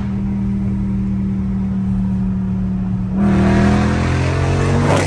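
Straight-piped, catless Dodge Charger Scat Pack's 392 (6.4-litre) HEMI V8, heard from inside the cabin. It cruises steadily, then about three seconds in the throttle opens and the exhaust note rises, louder, for about two seconds before falling away near the end.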